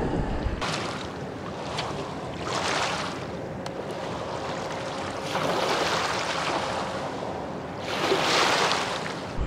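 Small river waves washing onto a gravel and rock shoreline, coming in four swells of wash a couple of seconds apart.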